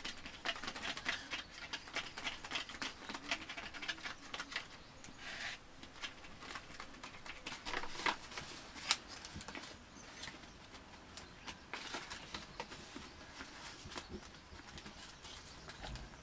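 Green leaves rustling and crinkling as they are handled and pressed flat by hand, with many scattered small clicks and crackles.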